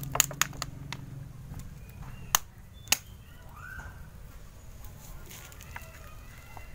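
Water poured from a thin plastic drinking-water bottle onto potting soil, the bottle giving a scattering of sharp clicks and crackles as it empties, two of them louder a little past the middle.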